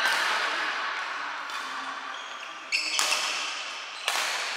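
Badminton rackets hitting the shuttlecock in a rally, several sharp hits about a second apart with a short squeak now and then, echoing in a large hall.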